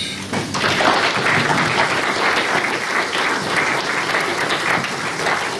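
Audience applauding: many people clapping at a steady level, starting about half a second in.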